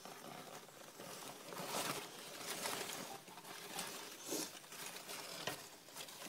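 Irregular rustling and handling of leafy vivarium plants as they are moved aside by hand.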